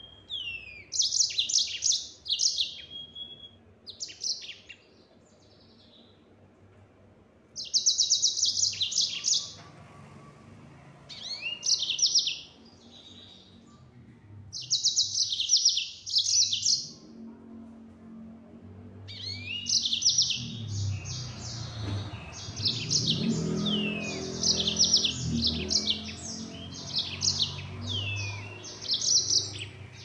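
Yellow-fronted canary singing in fast, high trilled phrases, each a second or two long with short pauses between. Over the last ten seconds or so it sings a longer, almost unbroken run of song.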